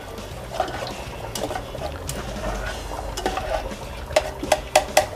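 A utensil stirring a pan of sautéing onion and tomato sauce on the stove. It scrapes lightly, then clinks sharply against the pan about five times near the end.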